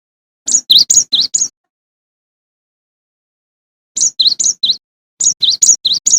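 Cinereous tit (gelatik batu) singing: three quick bursts of high, ringing two-pitched notes, four or five notes to a burst, with silent gaps between.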